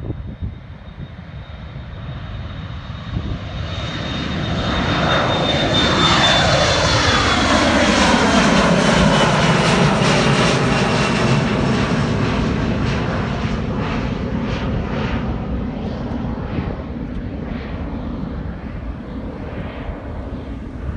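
Twin-engine jet airliner taking off and passing by: a rising engine roar with a high whine that slowly falls in pitch. It is loudest about halfway through, then fades gradually.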